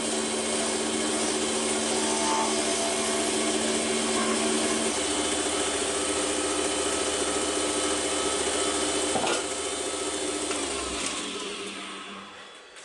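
Wood lathe running with a turning tool cutting a Thuya burl pen blank, a steady hiss over the motor's hum, which fades away in the last few seconds.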